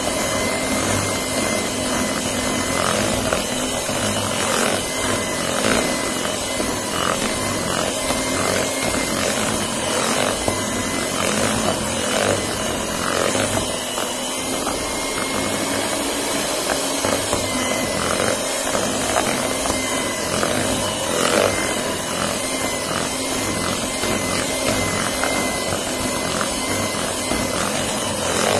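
Electric hand mixer running at speed 3, its beaters whipping soft butter in a bowl, with a steady motor whir and irregular clicks and scrapes of the beaters against the bowl.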